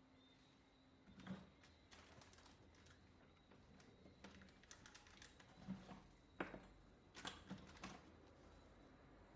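Faint, scattered clicks and light taps from handling a phone and its replacement screen while adhesive is run around the screen's edges, over a faint background hum.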